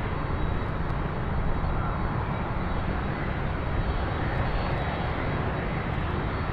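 Steady jet aircraft engine rumble, heaviest in the low range, with a faint thin high whine above it.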